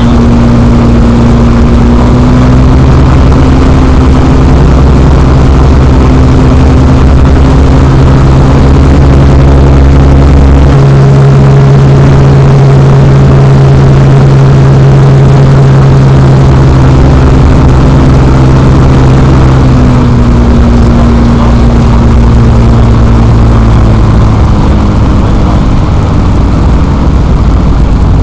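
X-Air microlight's engine and propeller running steadily under a constant rush of noise. The engine note steps up in pitch about eleven seconds in and drops back about nine seconds later.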